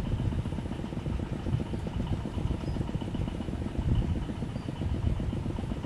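Wind buffeting the microphone: a steady, choppy low rumble. A faint high trill runs steadily above it.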